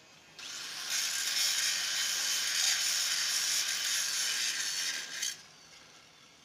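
Arc welding on a steel pipe: a steady hissing arc starts suddenly about half a second in, grows louder a moment later, and cuts off suddenly a little after five seconds.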